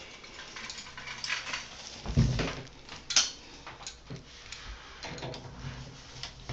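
Hand tools being rummaged through and handled: scattered metal clinks and knocks, with a heavier thump about two seconds in.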